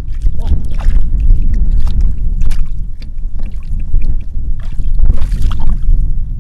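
Hands splashing and sloshing in shallow muddy water in short, irregular bursts, over a heavy rumble of wind on the microphone.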